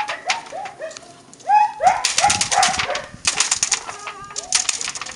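Malinois puppy giving a quick run of short, high-pitched yips while it tugs at a rag, mixed with sharp crackling hits and clicks.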